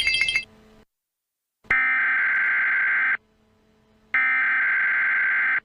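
Emergency Alert System header data bursts: two loud, screechy digital tone bursts, each about a second and a half long with a second's gap between them, marking the start of a new alert. A repeating ringing chime cuts off in the first half second.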